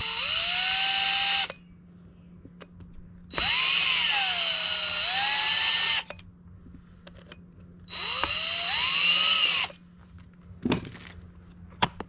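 Cordless drill driving in the screws that clamp an electric scooter's split rim together, in three bursts of about two seconds each. Its whine rises and dips in pitch as the trigger is worked, snugging the screws most of the way down. A couple of light clicks follow near the end.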